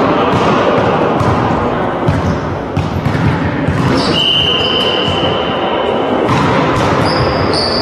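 Echoing sports-hall din of a volleyball match: repeated ball hits and thuds over a background of voices. A steady high tone holds for about two seconds midway through.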